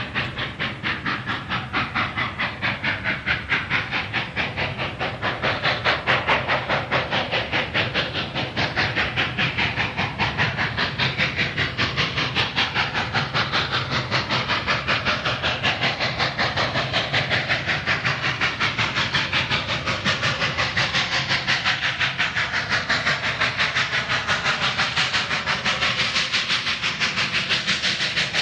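Union Pacific 844, a 4-8-4 Northern steam locomotive, chuffing in a steady, rapid, even beat as it works its train away from a stop.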